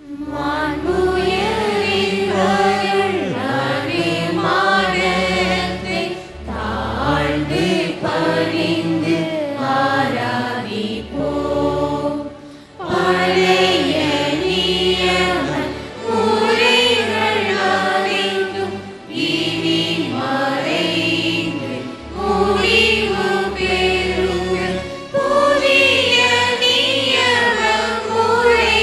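Choir singing a hymn to instrumental accompaniment with held bass notes, in phrases with short breaks between them.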